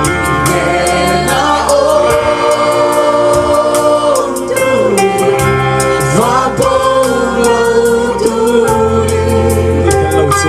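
Live Christian worship song sung in Mizo by a singer on a microphone, backed by an amplified band. Bass notes are held under the voice while drums and cymbals tick steadily.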